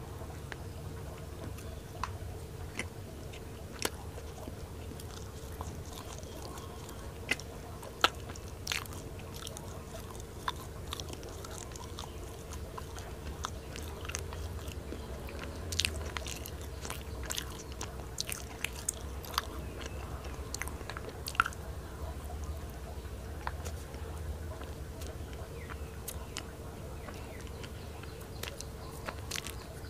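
Close-up mouth sounds of chewing a flaky Thai khanom pia pastry with salted egg yolk filling: soft wet smacks and scattered crisp clicks, the sharpest about 8 and 21 seconds in, over a faint steady hum.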